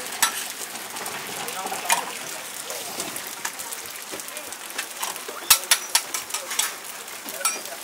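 Food sizzling on a hot flat-top griddle, with sharp clicks and scrapes of metal spatulas striking the steel plate; the clicks come in a quick cluster about five to six and a half seconds in.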